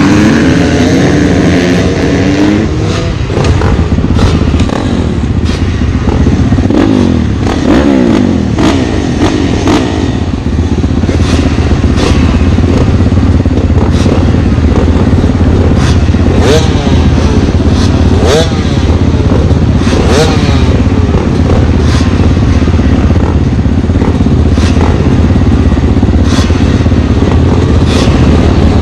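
Dirt bike engine running hard during an off-road race, repeatedly revving up and shifting in the first part, then held at a steady pitch. Sharp knocks and clatter from the bike run through it.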